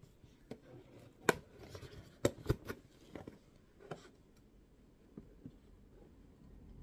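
Scissors snipping at a cardboard box, a series of short, sharp snips and clicks, loudest between about one and two and a half seconds in, then fainter and dying away.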